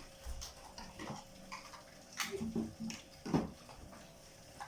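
Scattered light clicks and knocks, about five over the few seconds, the sharpest about three and a half seconds in, from handling a toy remote-control car and its parts, with a faint steady hum underneath.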